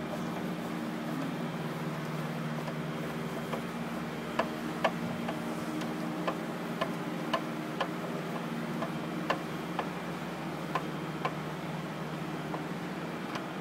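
Screwdriver ticking against the metal screws and fuse clamps of an oil-filled ring main unit's fuse holder as the clamps are unscrewed: about a dozen sharp ticks, often in pairs about half a second apart, over a steady low hum.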